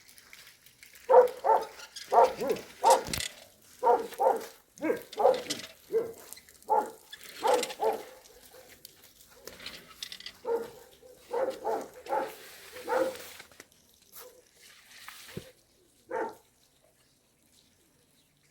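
Dog barking repeatedly in quick runs of short barks, stopping about thirteen seconds in, with one more bark a few seconds later.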